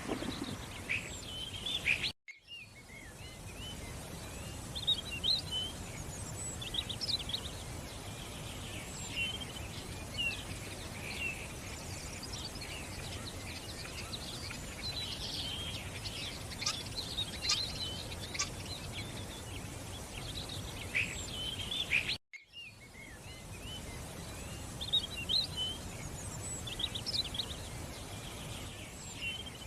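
Several birds chirping and calling over a steady background hiss, the calls short and busy throughout. The sound drops out abruptly for a moment about two seconds in and again about twenty-two seconds in.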